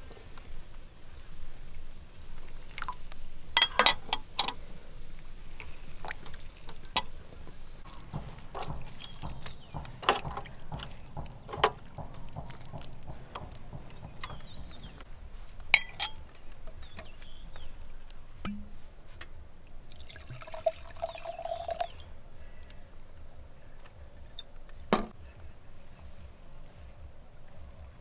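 Liquid pouring and trickling, with scattered sharp clicks and knocks.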